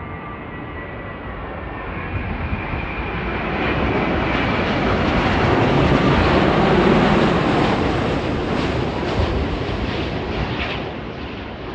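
Boeing 787-9 Dreamliner passing low overhead on final approach with its gear down. A thin whine grows into jet engine noise that is loudest about six to seven seconds in, then fades as the airliner goes by.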